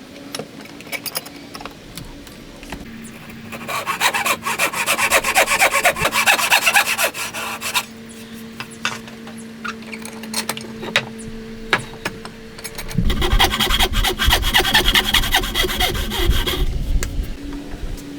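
A hand tool is worked back and forth over wood in rapid, rhythmic scraping strokes. There are two runs of a few seconds each, with lighter scraping and clicks between them.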